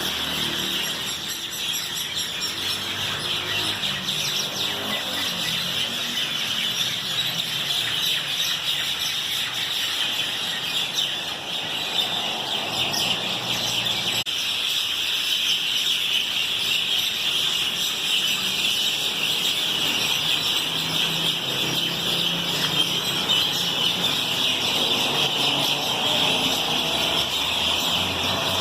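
A dense chorus of many birds chirping together in a steady, continuous chatter.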